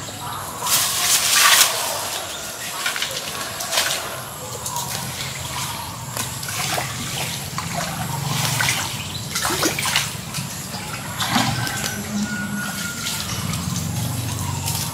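Clay pot being dipped into a shallow stream and filled, with repeated splashes and sloshing water, the loudest about a second in.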